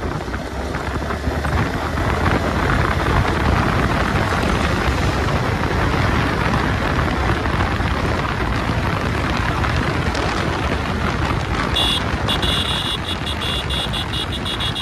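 Wind roar buffeting the microphone of a sport motorcycle riding at highway speed, with the engine and road noise under it as the bike speeds up. A high fluttering tone joins near the end.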